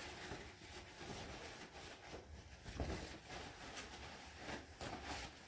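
Faint, irregular rustling of paper towels being handled and wiped across resin-wet printer parts, with a few soft bumps.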